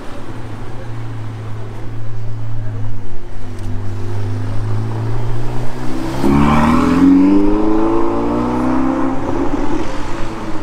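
Ferrari 488's twin-turbo V8 running with a steady low note, then about six seconds in the revs climb sharply as the car accelerates away, the engine note holding high and loud afterwards.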